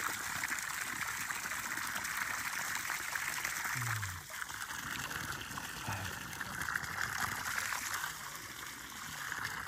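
Well water gushing steadily from an irrigation hose and splashing onto chiltepin bushes and wet ground, while a man drinks from the jet.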